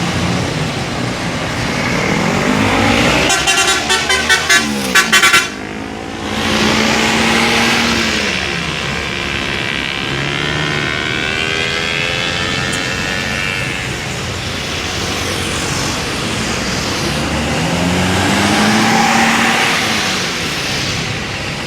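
Coaches driving past, their engines rising and falling in pitch as each one goes by, with a multi-tone 'telolet' bus horn sounding in a quick run of about six short blasts a few seconds in.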